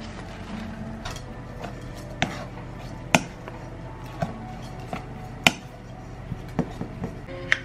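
Plastic rice paddle knocking and scraping against a stainless steel mixing bowl while rice is stirred with furikake: irregular sharp clicks about once a second, the loudest about three and five and a half seconds in.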